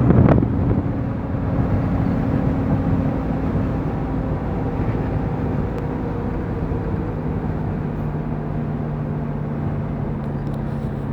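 A 1319 truck's diesel engine running on the road with a steady rumble. Its note shifts about seven seconds in.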